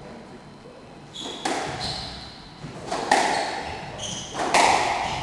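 Squash rally: the ball is struck by rackets and smacks off the court walls in a series of sharp, echoing hits starting about a second in. Short squeaks of players' shoes on the wooden court floor come between the hits.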